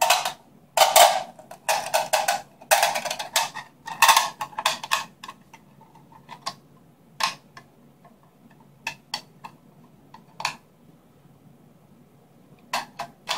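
Steel E-Lander AR-15 magazine being reassembled by hand: the coil spring and follower scrape and click against the steel magazine body as they are worked back in. A dense run of scrapes and clicks in the first few seconds thins out to scattered single clicks.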